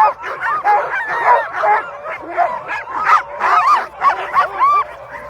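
A team of Alaskan husky sled dogs barking, yipping and howling over one another in a constant chorus, excited and eager to run while held at the start line.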